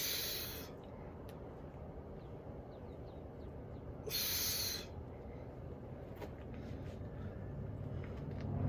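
Two short, loud whooshing rushes of air about four seconds apart, each coming with an overhead swing of a heavy hammer. Faint bird chirps sit underneath, and a low rumble builds near the end.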